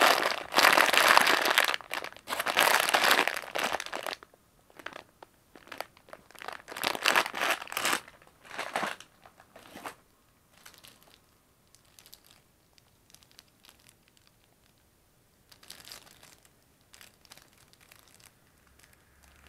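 A plastic bag of sweets crinkling loudly as it is handled for the first four seconds. Shorter bursts of crinkling follow up to about ten seconds in, then only occasional faint rustles of packaging.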